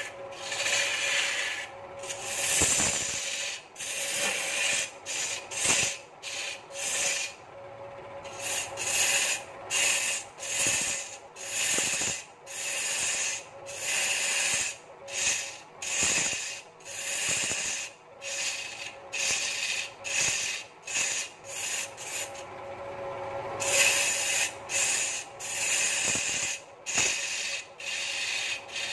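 A hand-held turning tool cutting into a large wooden blank spinning on a wood lathe: a scraping hiss in short strokes, about one a second, as the tool is pushed in and eased off. A steady hum from the lathe runs underneath.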